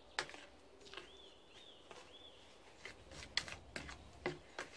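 A metal spoon stirring a wet marinade of oil, chopped onion and spices in a bowl: scattered clinks and scrapes against the bowl, several close together a little past the middle. A bird gives three short arched calls between about one and two seconds in.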